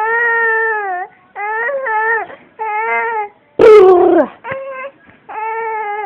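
A baby's repeated drawn-out squeals, each under a second, that sound like a seagull's calls, with one louder falling shriek about three and a half seconds in.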